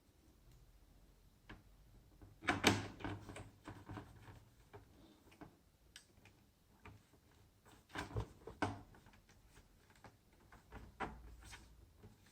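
Irregular clicks and knocks of hard plastic and small parts being handled, as when working on a laptop's casing. There is a cluster about two and a half seconds in, and further knocks about eight and eleven seconds in.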